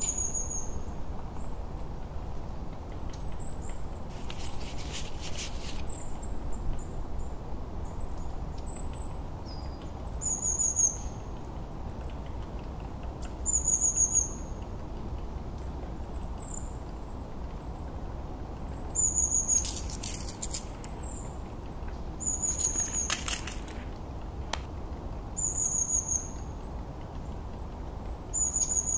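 Short high bird chirps, each a quick falling note, repeated every two to three seconds over a steady low background hum, with a few brief rustling bursts in between.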